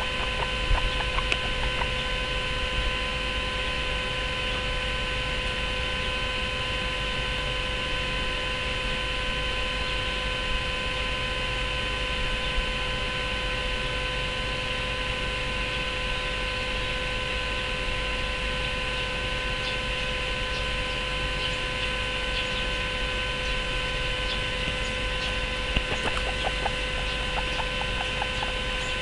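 Steady electrical hum made of several constant tones over an even hiss, with a few faint clicks about a second in and again near the end.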